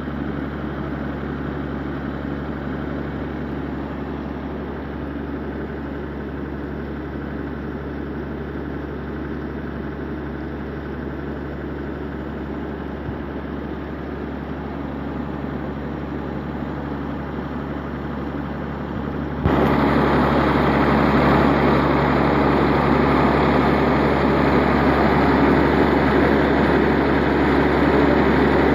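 Muddy water gushing steadily from the discharge pipe of a newly drilled water well and splashing into a pit, over the steady hum of an engine running. About two-thirds of the way through, the whole sound suddenly gets louder.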